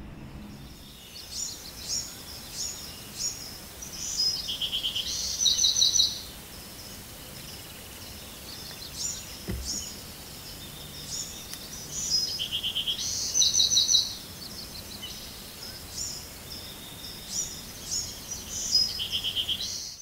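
Field recording of a wild songbird singing over a steady outdoor hiss: three song bouts, each a run of high chirps ending in fast buzzy trills. A soft low thump comes just before halfway.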